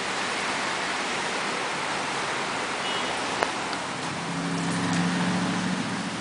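Steady hiss of rain and water running over a round stone fountain basin. A low vehicle engine hum swells and fades in the second half, with a single sharp click about three and a half seconds in.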